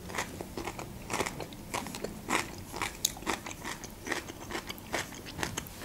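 A person chewing a mouthful of food with the mouth closed, picked up close to the microphone: a run of small, irregular wet clicks and soft crunches.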